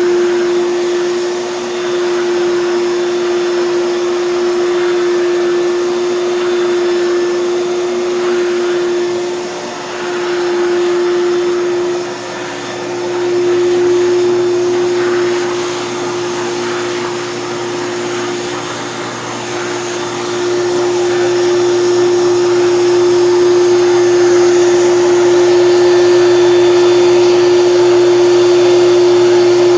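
Hoover canister vacuum cleaner running with a steady motor hum and airflow rush, the loudness rising and falling as it is worked and growing louder about two-thirds of the way through.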